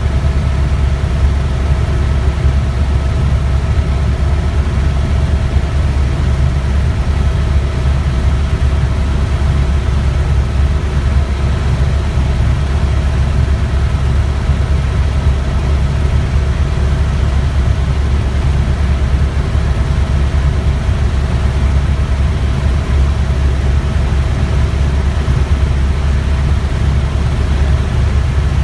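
Tour helicopter's engine and rotor in steady cruising flight, heard from inside the cabin: a loud, unbroken low drone with a thin steady whine above it.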